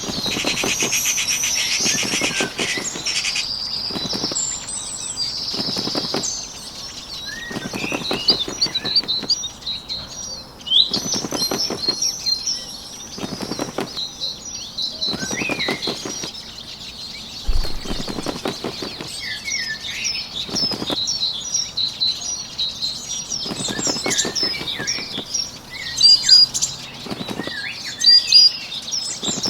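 Bird wings fluttering in repeated short bursts every couple of seconds, over small birds chirping and twittering.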